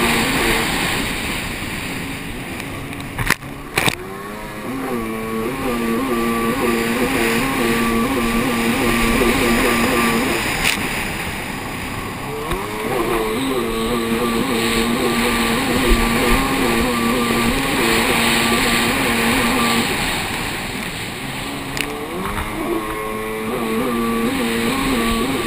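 Racing jet ski engine running hard at high revs, over wind and water spray. Its pitch drops three times, as the throttle comes off for the turns, then climbs back and holds steady. A few sharp knocks come through about three and a half seconds in, near eleven seconds and near twenty-two seconds.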